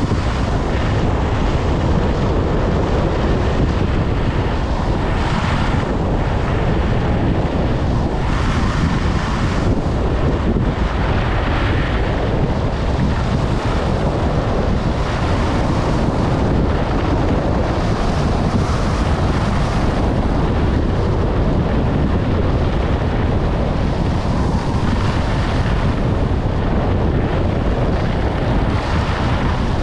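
Wind buffeting the microphone of a skier's camera at about 60 km/h: a steady, loud rush strongest in the low end. Skis hissing and scraping over the groomed snow add brighter swells every few seconds.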